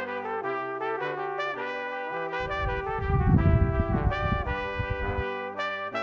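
Background instrumental music with a brass-sounding melody of stepping notes. From about two and a half seconds in to about five seconds, a loud low rumbling noise sits under the music.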